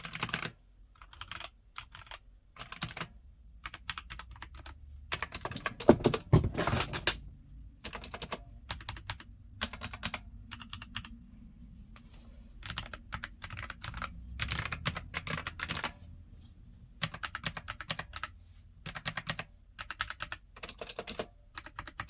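Typing on a mechanical keyboard with RGB-switch-style key clicks, in short runs of rapid keystrokes broken by brief pauses.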